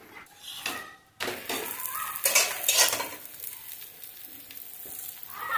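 Aloo paratha frying in oil on a hot iron tawa: a sizzle that starts suddenly about a second in and keeps going, with a few louder scraping strokes against the pan soon after.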